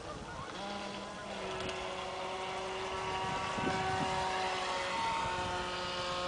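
Whine of an RC speedboat's 775 brushed electric motor running at speed. It is a steady high-pitched whine that sets in about half a second in and grows somewhat louder partway through.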